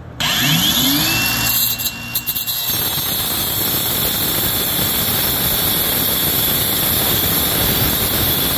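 Cordless Kobalt angle grinder with a Lenox cut-off wheel spinning up with a rising whine just after the start and running free for about two seconds, then biting into metal and cutting steadily with a continuous grinding hiss.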